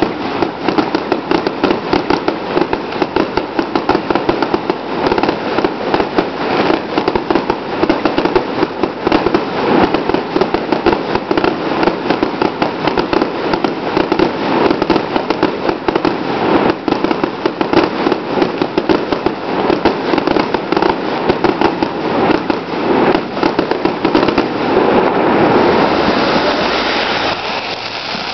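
Fireworks going off in a dense, continuous barrage of rapid bangs and crackles. In the last few seconds the bangs merge into a steady crackling hiss, and then the level drops.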